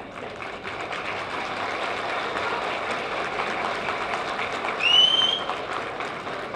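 Crowd clapping, many hands at once, with a short rising whistle about five seconds in, the loudest moment.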